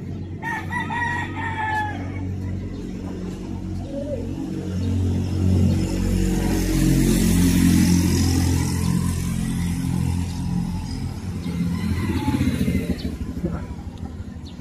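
A rooster crows once near the start. Then a motor vehicle's engine grows louder toward the middle and fades again toward the end.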